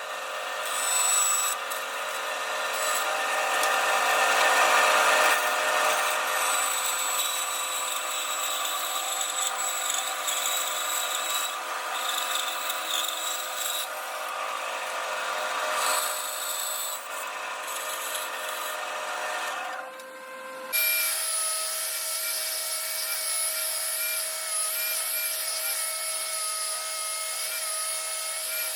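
Tools working wood: a rough, dense rubbing and grinding of a tool on wood. About two-thirds of the way through it cuts abruptly to a steadier whining tool sound whose pitch wavers slightly.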